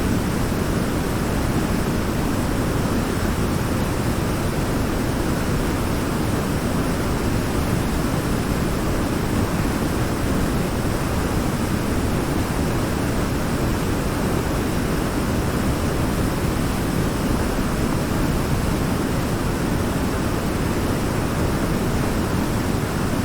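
Waterfall: a steady rush of falling water, deep and even throughout.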